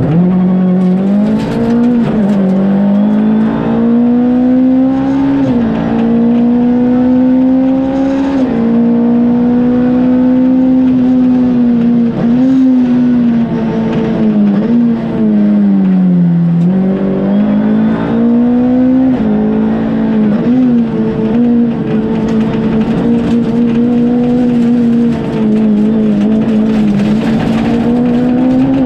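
Ford Fiesta R2 rally car's engine heard from inside the cabin, held at high revs at full stage pace. The pitch dips briefly and climbs back up again and again as the driver shifts gears and lifts for corners.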